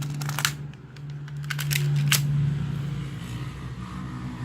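Sharp mechanical clacks of a Tokyo Marui M92 spring airsoft pistol being loaded with its magazine and cocked for the next shot: two loud clacks about a second and a half apart, with a few fainter ticks and a steady low hum behind.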